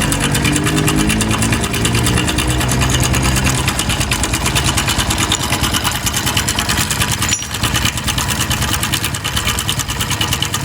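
Motorcycle engine running at idle with a rapid, even ticking throughout, the engine noise that the bike is being checked for.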